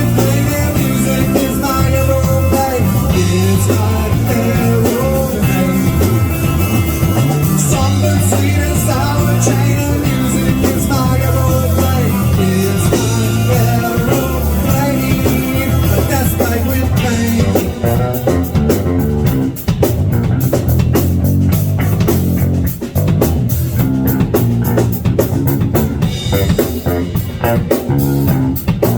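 Rock music with guitar, bass and drums, the beat becoming sharper and more pronounced about two-thirds of the way through.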